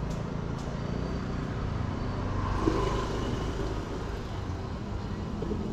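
Motorbike engine running steadily amid road traffic noise.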